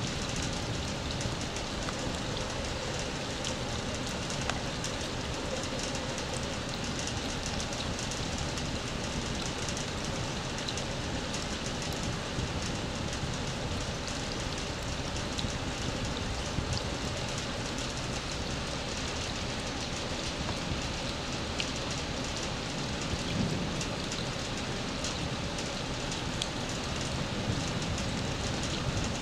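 Steady rain falling on wet ground and standing water, with a dense patter of drops.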